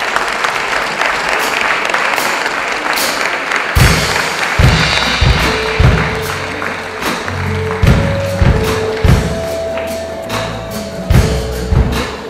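Audience applause, then a live band strikes up about four seconds in: kick drum and electric bass in a steady beat, bright percussion ticking on top and held keyboard notes, with the clapping going on underneath.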